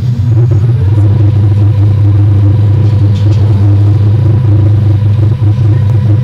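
A loud, steady low mechanical rumble.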